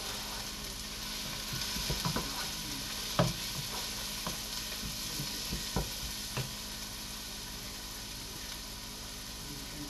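Leeks and garlic frying in a pot: a steady sizzle, with a few scattered knocks and clicks in the first two-thirds, the loudest about three seconds in.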